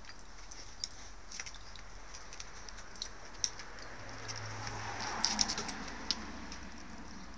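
Dogs playing: claws clicking and scrabbling on porch boards and collar tags jingling as an adult dog and a puppy wrestle, with a denser flurry of clicks and rustling about five seconds in.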